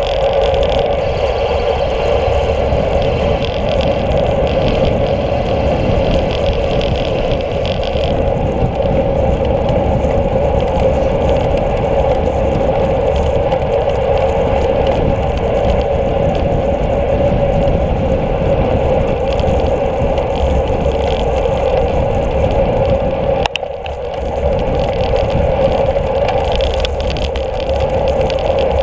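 Wind rushing over the microphone of a handlebar-mounted camera on a road bike moving at speed: a loud, steady rumble with a droning hum that dips briefly about three-quarters of the way through.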